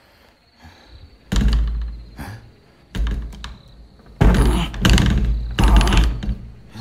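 A door thudding and rattling as it is pulled and shaken against its lock. Two single heavy thuds come first, then a longer run of rapid rattling thuds from about four seconds in.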